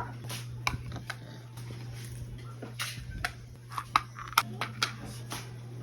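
Scattered sharp clicks and taps of a snack being handled and eaten, over a steady low hum.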